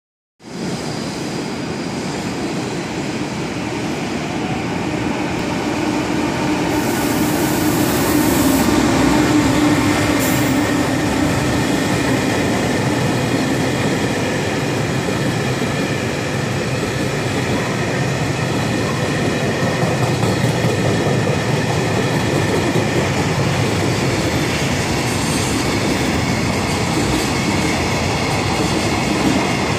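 Freight train running on the rails, a steady continuous noise of its wheels and wagons, with a brief high hiss about seven seconds in.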